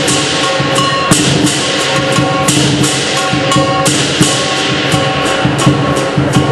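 Southern Chinese lion dance percussion: the big lion drum beating with cymbals clashing about three times a second and a ringing gong, in a steady, driving rhythm.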